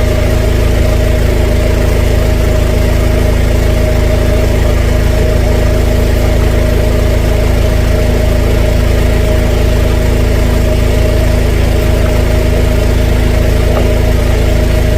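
Engine-driven drain jetter running steadily, its motor and high-pressure pump giving a constant hum with a fast low pulsing.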